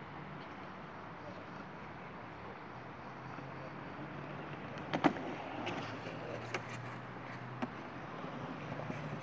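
Skate wheels rolling over hard ground as a steady rumble, with one sharp clack about five seconds in and a few lighter knocks after it.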